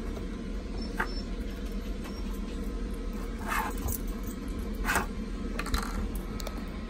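A few short scraping sounds as the orange plastic cap is worked off a Jetpower gas canister by hand, over a steady low hum.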